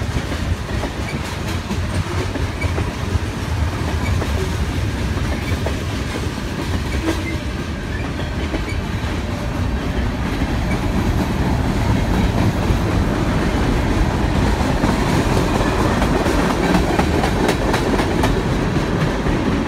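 Manifest freight train's cars (tank cars, hoppers and lumber flatcars) rolling past close by in a steady rumble, the wheels clicking over the rail joints; it grows a little louder about twelve seconds in.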